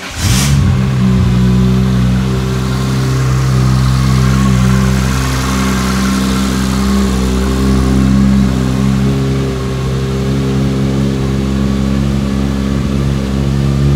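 Toyota 2JZ inline-six in a Nissan S15 firing up with a short burst right at the start, then idling steadily.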